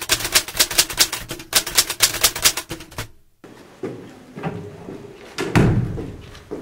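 Rapid clicking of a typewriter sound effect, several keystrokes a second in short runs, stopping about three seconds in. Then footsteps climbing stone stairs, with one heavier thud about two and a half seconds later.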